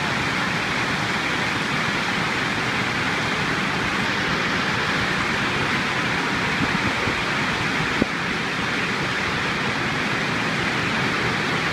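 Dense hail pelting a stone-paved street, a steady heavy hiss of countless small strikes. A single brief knock sounds about eight seconds in.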